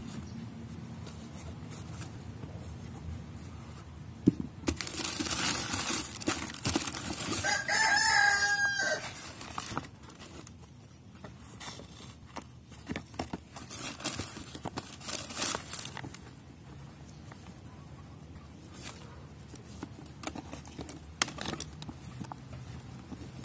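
Handling and rustling sounds as a canvas shoe and its tissue paper wrapping are moved about, with scattered light clicks. About eight seconds in comes a loud animal call: one held cry that falls slightly at the end.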